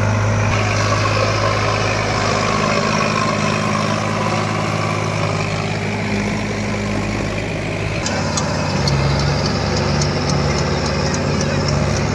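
Tractor diesel engines running steadily under load while pulling rotary tillers. About two-thirds through the sound changes abruptly to a different engine note with a faint, rapid, regular ticking.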